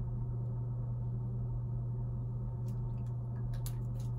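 A steady low hum throughout, with a few soft clicks near the end as small makeup items are handled.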